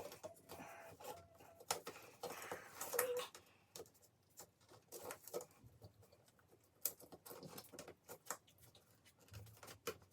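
Faint, scattered small clicks and taps of hands handling small parts in a small room.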